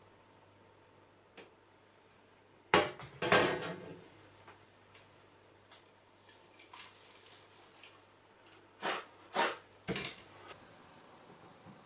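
A bare metal motorcycle front mudguard being handled and turned over on wooden planks, knocking against them: two sharp knocks about three seconds in, then three more, a half-second apart, near the end.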